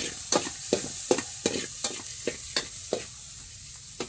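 A spoon scraping and knocking against an aluminium pot while stirring, in a steady rhythm of about three strokes a second, with garlic and onion sizzling in hot oil underneath.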